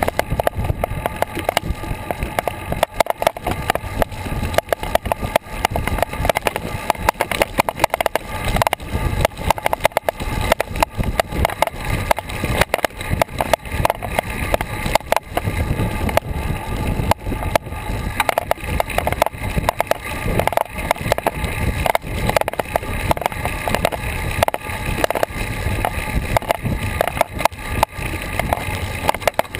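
Bicycle riding along a paved path, picked up by the rider's action camera: a dense, irregular rattle and knocking from road vibration.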